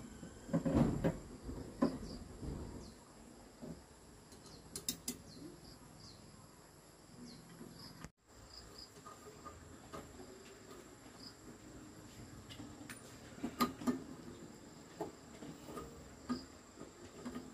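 Scattered light knocks and scrapes of a metal slicer blade and its bolt being handled and fitted against the wood inside a wooden agricultural slicer, in two short clusters, near the start and about two-thirds of the way through. A faint steady high insect trill runs behind.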